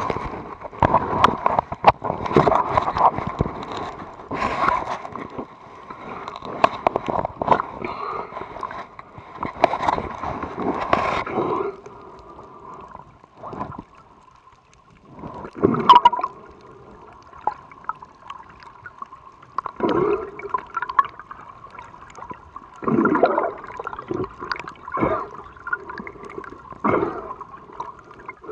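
Underwater water noise picked up through a waterproof camera dive case: uneven gurgling and sloshing with many sharp clicks, busy for about the first twelve seconds, then quieter with separate gurgling bursts, over a faint steady tone.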